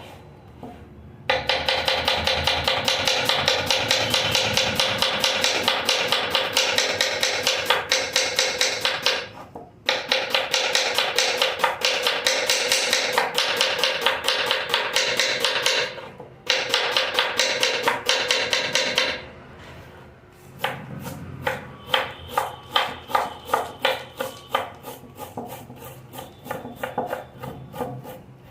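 Fast, rhythmic knife chopping, many strikes a second, in long runs that stop briefly twice, then continue as slower, more spaced strokes in the last third.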